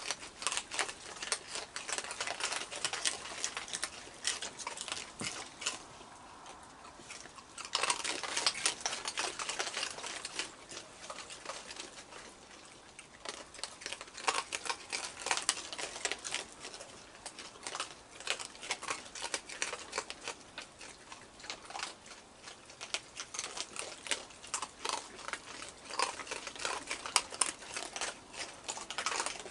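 A group of raccoons crunching and chewing dry food, a dense crackle of many small crunches that eases off briefly a few times.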